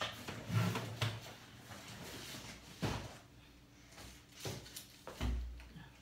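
Handling noise from laptop parts being moved about: irregular knocks, clicks and rustles, with a dull thump about five seconds in.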